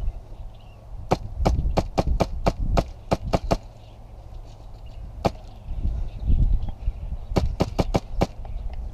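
Airsoft rifle fired in quick single shots: sharp cracks about three or four a second, a run of about a dozen, one alone a couple of seconds later, and another quick run near the end, over a low rumble.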